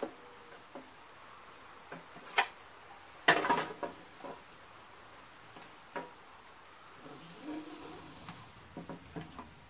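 A steady high insect chirring throughout, with a few sharp plastic clicks and a short rattle, loudest about three seconds in, from the plastic recoil-starter pulley and its old pull rope being handled and pulled out of the starter housing.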